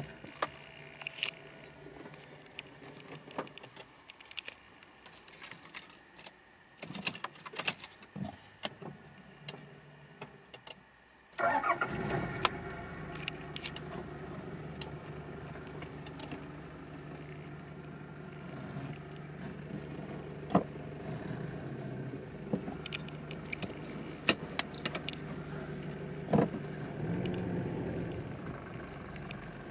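Keys jangling and clicking at the ignition, then about eleven seconds in the Toyota 1KZ-TE turbo-diesel inline-four starts abruptly and settles into a steady idle, with a few clicks over it.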